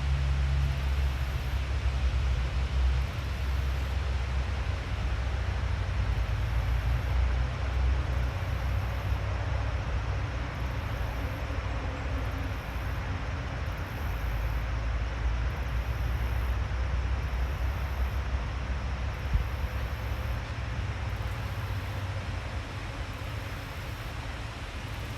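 Outdoor forest ambience: a steady, uneven low rumble under a broad hiss, easing slightly toward the end.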